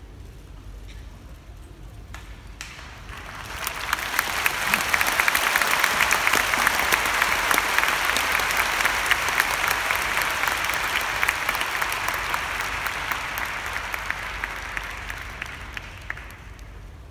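Large sumo arena audience clapping. The applause builds about three seconds in, holds for about ten seconds and fades away near the end.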